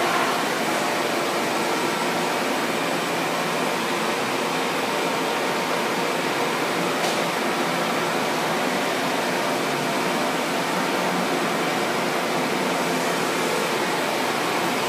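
Steady mechanical noise with a faint hum, unchanging throughout.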